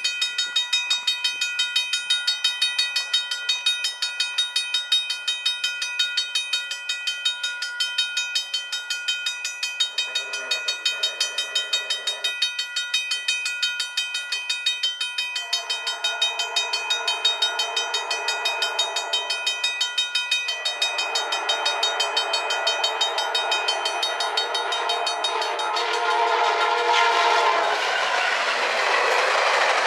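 A level-crossing bell rings steadily while a VIA Rail F40PH-2 diesel locomotive sounds its horn in several long blasts as it approaches, the first about ten seconds in. Near the end the train reaches the crossing and its wheels and engine rumble past.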